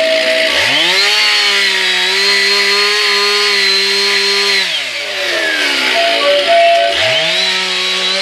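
Chainsaw revved from idle up to full throttle and held there for about four seconds. It drops back toward idle, then revs up to full throttle again near the end.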